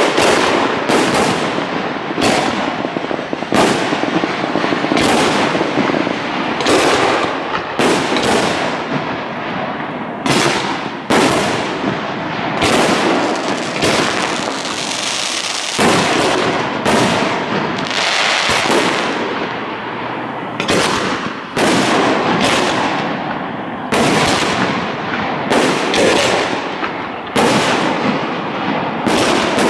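Aerial firework shells bursting in rapid, irregular succession: dozens of sharp reports, often one or two a second, over continuous rushing noise, with a short stretch of steady hiss about halfway through.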